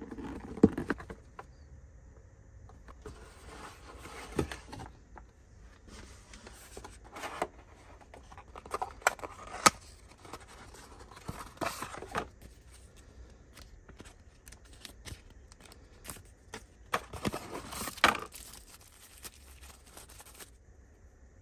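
Unboxing handling noise: a cardboard product box and its inner flaps being lifted and opened, with scattered taps and scrapes of the box parts, then tissue paper rustling and crinkling as it is unwrapped near the end.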